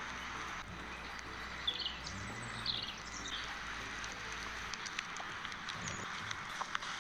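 A few short, high chirps, like a bird calling, over a steady hiss of background noise.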